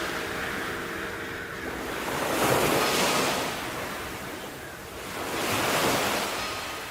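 Sea waves washing onto the shore, two swells of surf rising and falling a few seconds apart.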